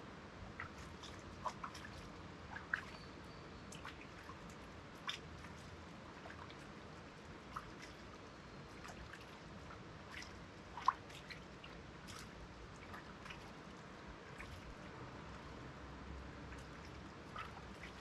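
Mountain stream babbling and trickling: a steady soft rush of water with scattered small drips and plops.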